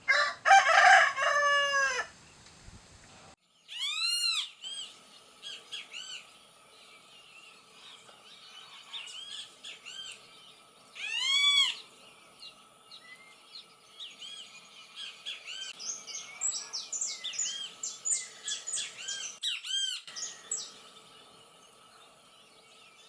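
Birds calling: a burst of many overlapping calls at the start, then single loud rising-and-falling calls about four and eleven seconds in, and a run of quicker short calls in the second half.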